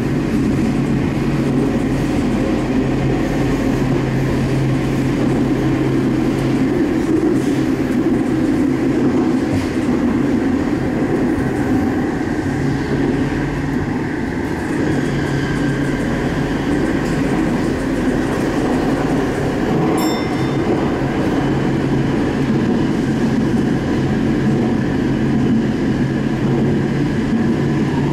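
Sendai Subway Tozai Line 2000 series linear-motor train running at speed through the tunnel between stations, heard from inside the car: a steady rumble of wheels on rail with a low hum that fades out for a while in the middle and returns.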